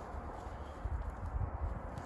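Irregular dull thumps and knocks, heaviest about a second in: a shovel digging and striking the earth at the bottom of a well.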